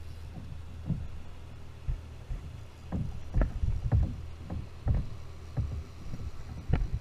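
Water lapping and knocking against a kayak hull: a run of irregular dull knocks over a steady low rumble.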